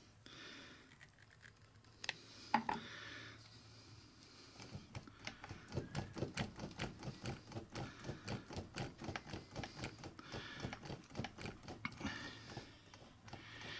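Rapid light mechanical clicking, about five a second for several seconds, from a dirty Pfaff 463 sewing machine's mechanism being worked by hand. Its needle bar is stuck in old oil varnish.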